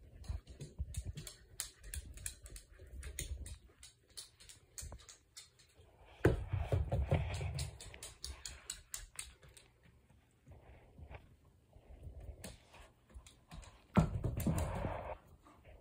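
Dogs' claws ticking and clicking on a hardwood floor as they play. About six seconds in and again near the end there is a louder moment: a sudden knock followed by about a second of rough scuffling noise.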